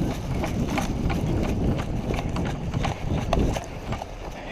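Footsteps of a player on the move in airsoft gear, with a string of knocks and rattles as the kit jostles, over a low rumble.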